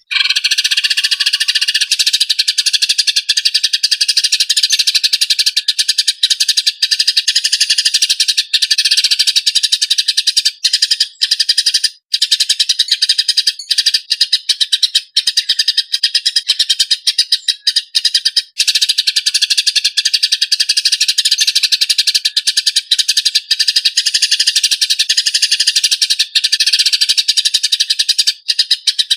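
Eurasian tree sparrows giving fighting calls: a dense, harsh, rapid chirping chatter with hardly a break, starting abruptly out of silence and pausing only briefly a few times near the middle.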